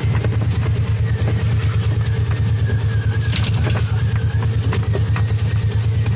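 John Deere Gator side-by-side engine running with a steady low drone while the vehicle drives slowly over a dirt trail, with a few short knocks and rattles about halfway through.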